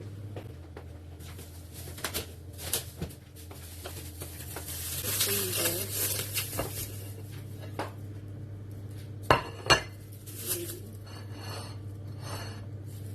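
Kitchen knife cutting on a cutting board with scattered clicks and clatter of utensils and dishes, including two sharp knocks about nine and a half seconds in, over a steady low hum.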